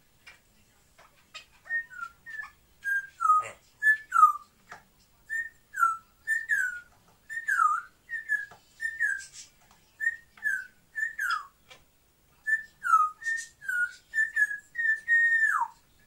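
African grey parrot whistling a repeated phrase of short notes, mostly in pairs: a brief level note, then one that slides quickly downward. It runs on with a short pause about twelve seconds in and ends on a longer held note that slides down.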